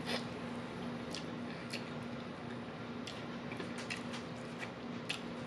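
Eating fried chicken held up to the mouth: biting and chewing, heard as scattered faint clicks and wet mouth noises over a steady low hum.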